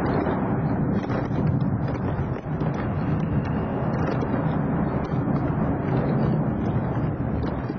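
Boeing 747's jet engines running at climb power as the airliner climbs away after takeoff: a steady, low, rumbling noise with no breaks.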